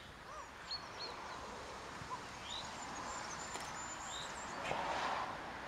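Small birds chirping: short, high, falling calls a second or two apart over a steady outdoor background hiss, which swells briefly about five seconds in.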